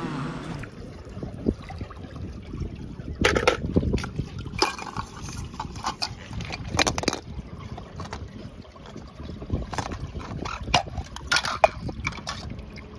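Water sloshing while hands handle clear plastic cups and bottles, with irregular sharp crackles and clicks from the plastic.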